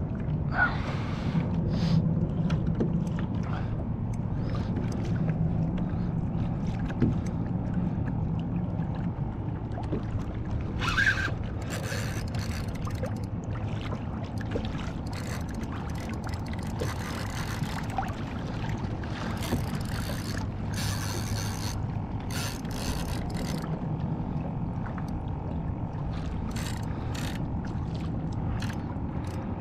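Water lapping against a plastic fishing kayak's hull over a steady low rumble. Short scratchy bursts break in about a dozen times, mostly in the second half.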